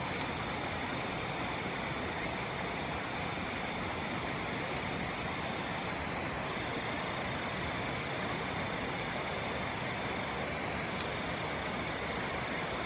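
Forest stream flowing with a steady rush, with night insects calling in thin, high steady tones that break off now and then.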